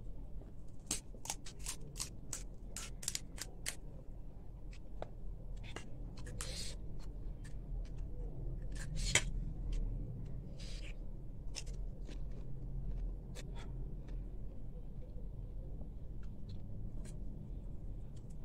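Crisp panipuri shells crunching while being chewed and cracked open by hand, close to the microphone: many short, irregular crackles.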